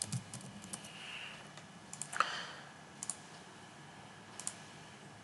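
Computer keyboard and mouse clicks: a quick run of key taps at the start, then single clicks about three and four and a half seconds in. A short, louder noise comes about two seconds in.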